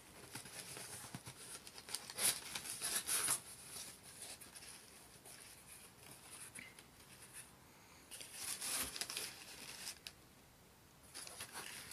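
Cardboard box flaps being pulled open and crumpled newspaper packing rustling and crinkling under a hand, in several short bursts.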